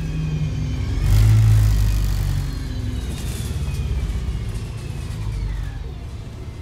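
Cummins ISBe 6.7 straight-six diesel and drivetrain of a MAN 18.240 Enviro 300 bus, heard from inside the cabin while driving. The engine drone swells loudly about a second in, then a high whine falls steadily in pitch as the sound dies down, as the bus slows.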